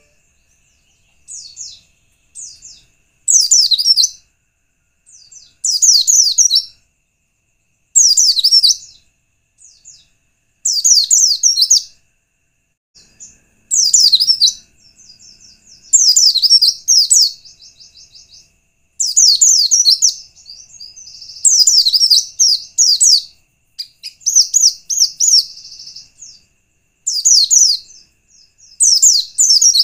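White-eye (pleci) singing: short bursts of rapid, high twittering notes repeated every two to three seconds, over a faint steady high tone. It is a lure song meant to draw other white-eyes into singing.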